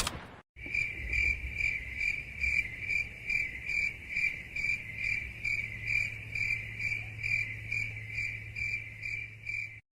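Crickets chirping, the stock meme sound effect for an awkward silence: a high chirp repeating about three times a second over a faint low hum. It starts about half a second in and cuts off just before the end.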